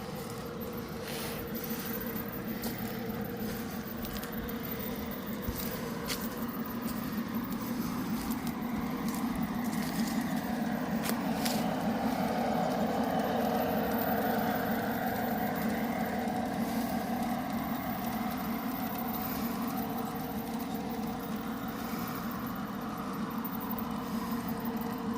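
G-scale model freight train running along garden-railroad track, a steady whirring rumble of wheels and motor. It grows louder toward the middle and eases off again, with scattered clicks in the first half.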